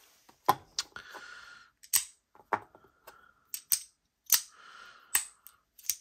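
Metal haptic fidget slider being worked back and forth, snapping into its detents with about ten sharp clicks. Twice a short sliding scrape runs between the snaps.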